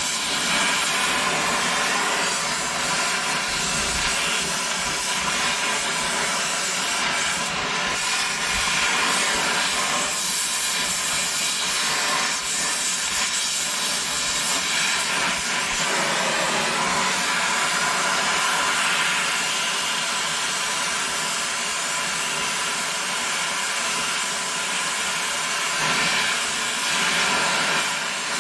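Harbor Freight pneumatic angle grinder running flat out on full air pressure: a steady hissing whine of rushing air and the spinning motor, kept going as the tool is run to destruction.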